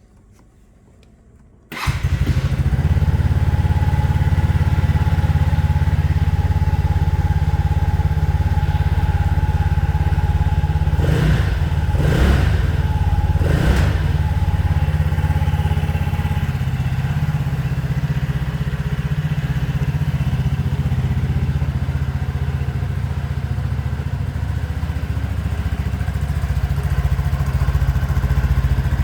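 Lexmoto Aura 125 scooter's 125cc engine starting about two seconds in and then idling steadily, with three quick blips of the throttle near the middle.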